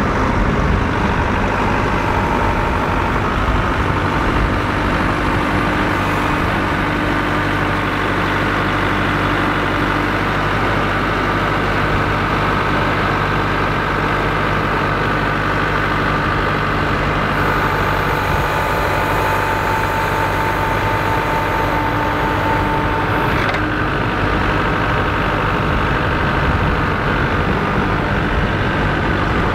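Kubota MX5400 tractor's four-cylinder diesel engine running steadily while it works its front-loader pallet forks. A higher whine joins for about six seconds past the middle.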